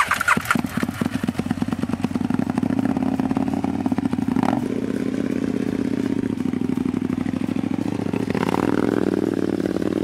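KTM LC8 V-twin engine in a four-wheel-drive kart running loud and steady at low revs as the kart drives and climbs a dirt slope, its engine not yet tuned. The engine comes in abruptly at the start, with small changes in throttle about halfway and near the end.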